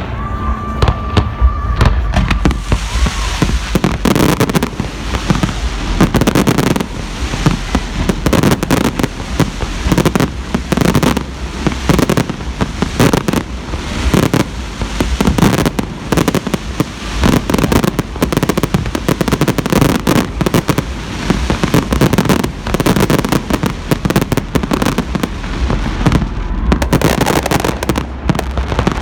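Fireworks going off in a dense, unbroken barrage: many overlapping bangs and crackles, several a second.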